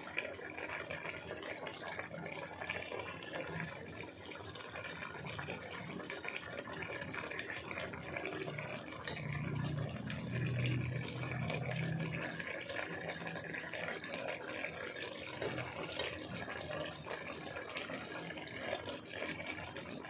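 Chicken and potatoes simmering in a spiced gravy in a cooking pot: a steady sound of bubbling liquid.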